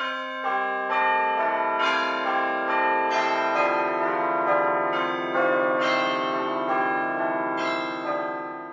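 Bells ringing a run of struck notes in sequence. Each note rings on under the next, building a dense overlapping chime, and it fades near the end.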